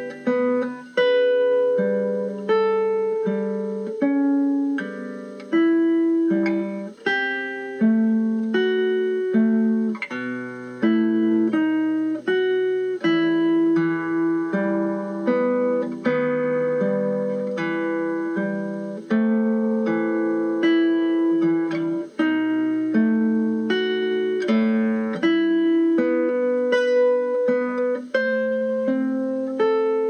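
Background music: a slow melody on plucked guitar, each note struck and left to ring away.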